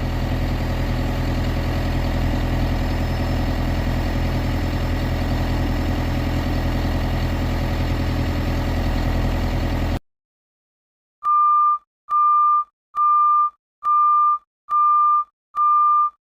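John Deere 320 skid steer's diesel engine running at a steady idle, then cutting off abruptly. After a short silence, a back-up alarm gives six steady, evenly spaced beeps.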